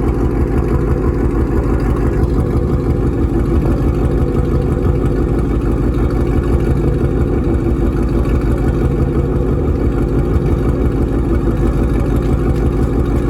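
V8 car engine idling steadily, the owner listening for the cylinder 8 misfire (code P0308) that persisted after new coil packs and spark plugs. No occasional 'poof' from a miss is heard by the owner.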